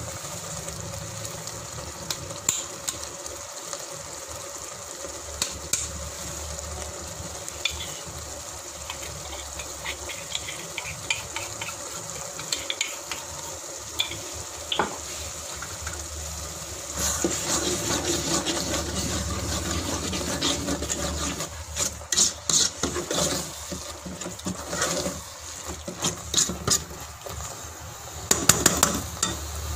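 Tomato-and-onion curry gravy sizzling steadily in a metal pot as spice powder is added. From a little past halfway it grows louder and busier with a metal spoon stirring and scraping against the pot, with many clicks.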